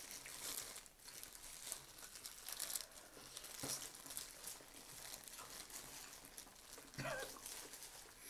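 Disposable plastic gloves crinkling and rustling as hands pull apart roast chicken, with faint eating sounds from chewing and noodles. The crinkles come in irregular bursts.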